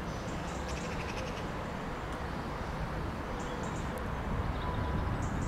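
Birds calling over a steady low outdoor rumble. A quick run of chattering notes comes about a second in, with a few short calls near the end.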